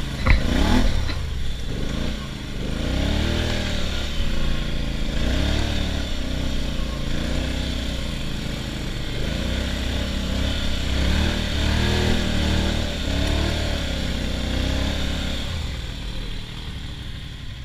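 ATV engine under way, its revs rising and falling every second or two over a steady low drone, with a brief thump just after the start.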